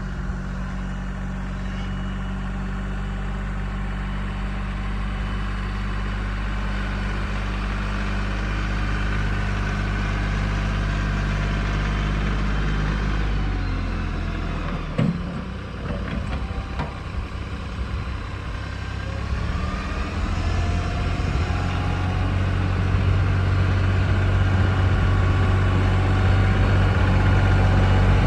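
Kioti CK3510SE compact tractor's diesel engine running steadily; about halfway through its note changes and wavers, with a single sharp clunk, then it settles at a new steady speed that grows louder toward the end.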